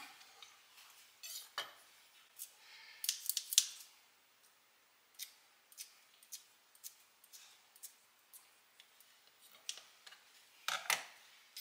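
Kitchen shears snipping green onions over a wooden cutting board: scattered short blade clicks and snips at an uneven pace, with a louder clatter near the end.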